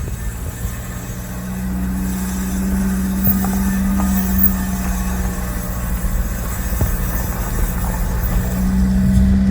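Subaru Sambar moving slowly with a rubbing, scraping noise from a brake, over a steady vehicle rumble and a held tone. The noise comes from a small stone wedged between the brake backing plate and the rotor.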